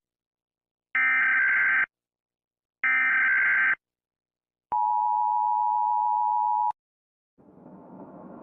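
Emergency Alert System tones: two buzzing digital header bursts, each about a second long and a second apart, then the steady two-tone EAS attention signal held for about two seconds. Near the end a low noise fades in and grows.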